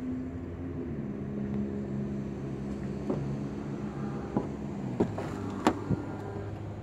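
Electric motor hum from a Chevrolet Tahoe's power-deploying running board as it retracts after the door shuts, dropping slightly in pitch about a second in. A few sharp clicks and knocks follow in the second half as the driver's door is unlatched and opened.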